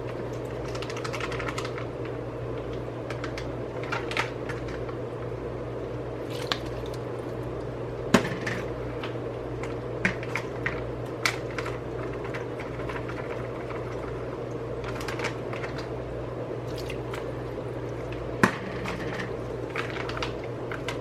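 Wet sauerkraut squishing and slopping as it is spooned from its bag into a bowl, with occasional sharp clinks of a utensil against the bowl, over a steady low kitchen hum.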